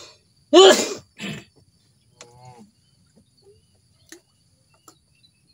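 A man's voice shouting "hus", the Indonesian shooing call, once about half a second in, followed by a shorter, breathier call. A brief pitched call comes near two and a half seconds in, and a few faint clicks follow.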